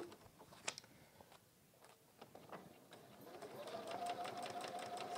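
Electric domestic sewing machine starting up about three seconds in and quickly coming up to a steady fast stitching speed, the needle running through a seam of pieced quilt fabric. A few faint clicks come before it.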